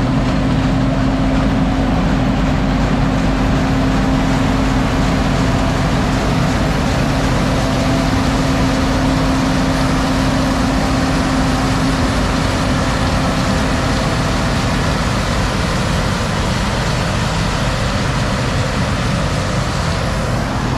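Heavy diesel engine of harvest machinery running steadily under a constant load, with a low steady hum that fades out about halfway through.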